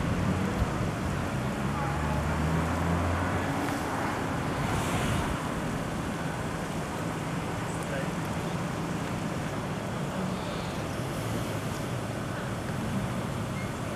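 Heavy lorry's diesel engine running at low speed as it hauls a long low-loader trailer, with wind rumbling on the microphone.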